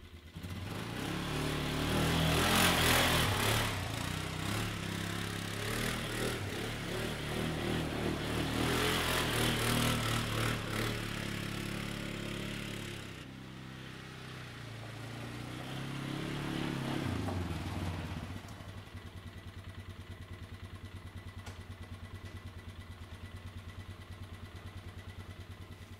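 Polaris Sportsman 500 H.O. ATV's single-cylinder four-stroke engine revving hard twice as the quad spins donuts in snow, easing off and rising once more. It then drops to a steady, evenly pulsing idle for the last several seconds.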